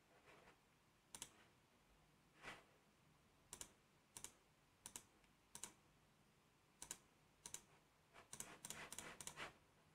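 Faint computer mouse clicks, singly or in quick pairs about every second, with a faster run of clicks near the end. The clicks come from points being placed along an outline with a polygonal lasso selection tool.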